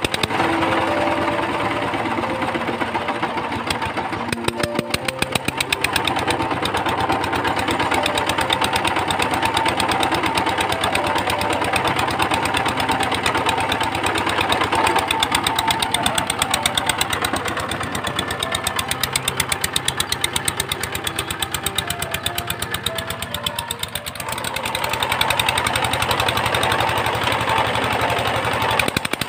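VST Shakti power tiller's single-cylinder diesel engine running steadily with a rapid, even chug of firing strokes. It eases briefly a few seconds before the end, then picks up again.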